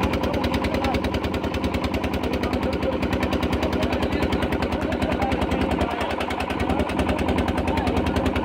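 A small engine running steadily with a fast, even chugging that does not change in speed.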